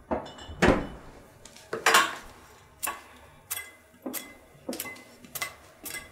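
Sound effects for an animated intro logo: a run of about nine sharp hits, each ringing briefly, spaced roughly half a second to a second apart.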